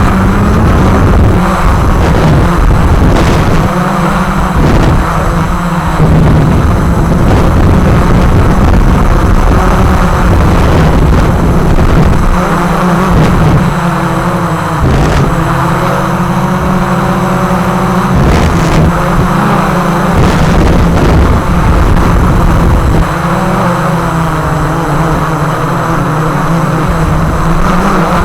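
Walkera QR X350 Pro quadcopter's electric motors and propellers humming steadily in flight, with a heavy low rumble that comes and goes, like wind buffeting the microphone.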